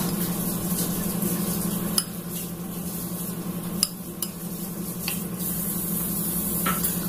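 A metal spoon stirring and scraping through lontong rice cakes and chicken curry in a ceramic bowl, clinking against the bowl a handful of times, over a steady low hum.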